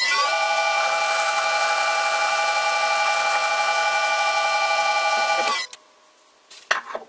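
Vintage metal lathe running under power, a steady whine from its motor and gearing, while a round-nose tool bit faces the end of a nylon bar. It cuts off suddenly about five and a half seconds in, and a few light clicks follow near the end.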